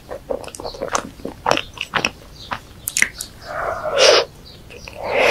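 Close-miked wet, sticky chewing and mouth clicks of someone eating thick chocolate spread from a spoon, with two longer, louder wet mouthfuls about three and a half seconds in and near the end.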